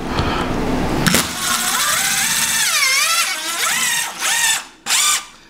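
Power drill driving a screw through an MDF backer board into the wall. The motor runs for about four and a half seconds, its pitch rising and falling as the trigger is eased, then gives two short bursts near the end to sink the screw head just below the surface.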